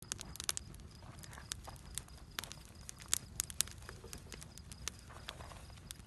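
Small wood fire of dry twigs and sticks crackling, with irregular sharp snaps and pops several times a second.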